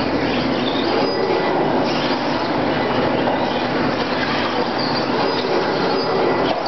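Electric 2WD RC race trucks running on a dirt track: a steady wash of motor and gear whine with tyre noise, and faint high whines coming and going.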